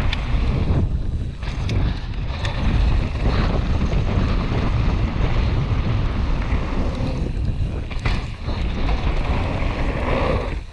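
Wind buffeting a helmet-mounted GoPro's microphone as a mountain bike rides fast down a dirt trail, a steady rushing rumble with tyre noise and a few sharp knocks from the bike over bumps.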